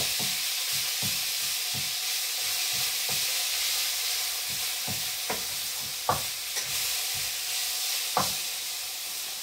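Minced beef frying with a steady sizzle in a frying pan while a wooden spoon stirs it, tapping and scraping against the pan about twice a second at first, then in a few louder knocks later on.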